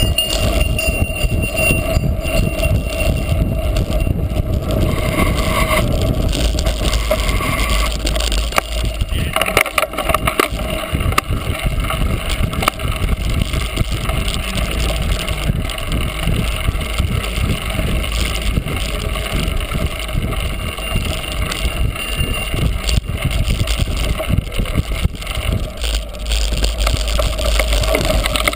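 Wind rumbling over an action camera's microphone on a cyclocross bike being raced, with the bike rattling and jolting over rough ground throughout.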